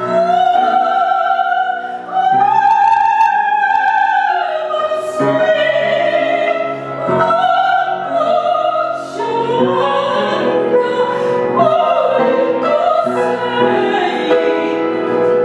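Operatic soprano singing with vibrato, accompanied by piano, the phrases built of long held high notes.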